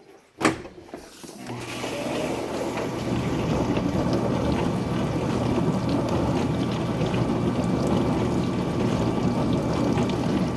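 Dishwasher resuming its wash: a click, then the circulation pump spins up over about a second and a half and runs steadily, with water spraying and sloshing in the tub.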